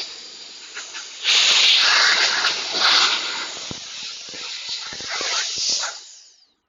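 Compressed air hissing as dust is blown out of a mini PC, louder from about a second in and dying away near the end, with a few faint clicks.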